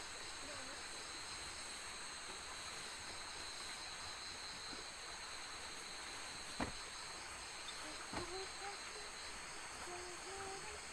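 Night insects chirring steadily in the forest, a continuous high drone. Two short knocks cut through it, about six and a half and eight seconds in.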